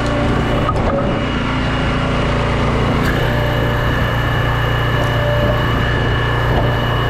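Log splitter's engine running steadily, with a higher steady whine joining in about three seconds in as the splitter works.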